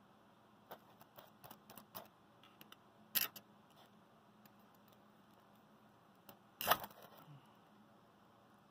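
Light clicks and knocks of a rod against a stainless steel cup of ice water: a scatter of small taps over the first two seconds, a louder knock about three seconds in, and the loudest about six and a half seconds in.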